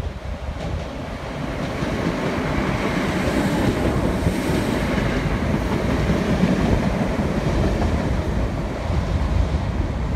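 Class 319 electric multiple unit running along the platform close by, with wheels rumbling on the rails. The sound swells over the first couple of seconds as the train reaches the microphone and then stays steady.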